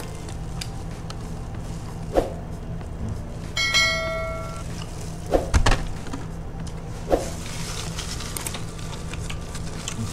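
Eating sounds from a chicken-wing mukbang: a few sharp clicks and smacks of chewing, the loudest just past the halfway mark. About four seconds in, a short bell-like chime rings for about a second, over a low steady hum.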